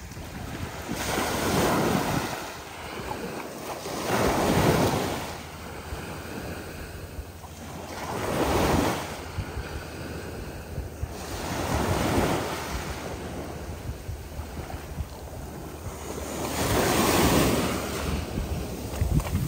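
Small waves breaking and washing up a sandy shore, swelling and fading in five slow surges a few seconds apart.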